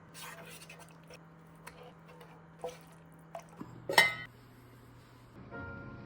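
Kitchen utensils clinking and knocking against dishes: a run of small taps, then one louder ringing clink about four seconds in. A faint steady low hum runs underneath and drops a little in pitch shortly before the loud clink.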